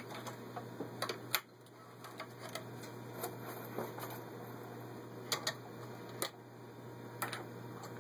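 Irregular clicks and knocks from handling a Singer 503A sewing machine between stitching runs while it is not sewing, over a faint steady low hum.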